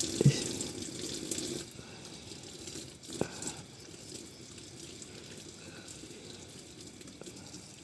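Water running from a tap, stopping about a second and a half in, then a faint hiss broken by a single sharp click about three seconds in.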